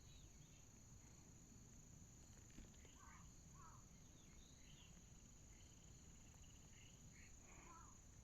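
Faint short mews of a small kitten, a few separate cries with a pair about three seconds in, over a steady high insect drone.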